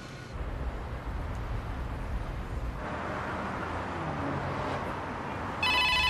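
Steady city traffic noise, a low hum of passing cars. Near the end a mobile phone starts ringing loudly with an electronic ringtone.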